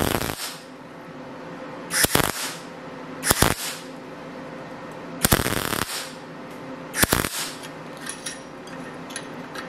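MIG welder laying tack welds: five short crackling bursts, each well under a second, with a pause of a second or more between them.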